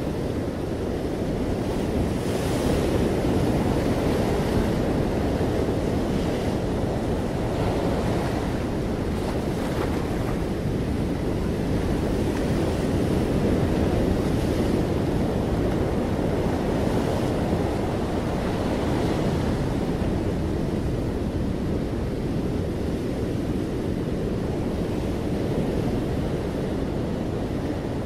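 Ocean surf breaking and washing over rocks and sand in a continuous rushing wash, swelling louder a few seconds in and again around the middle as waves come in.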